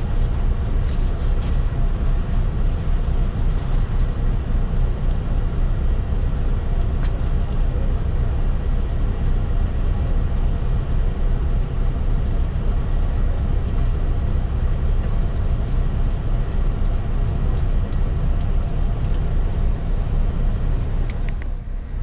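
A bus engine running steadily, heard from inside the bus cabin as a constant low rumble, with a brief dip in level and a few faint clicks near the end.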